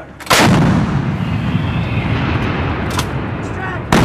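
Two shots from M777 towed 155 mm howitzers, about three and a half seconds apart: a sharp blast a third of a second in and another near the end, each trailing off in a long rolling rumble.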